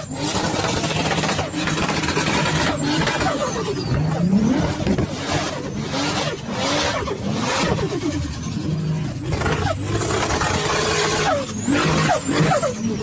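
Turbocharged car engine revved in a series of throttle blips, each one rising in pitch. A high turbo whistle falls away as the throttle shuts, with the fluttering chatter of compressor surge (turbo flutter).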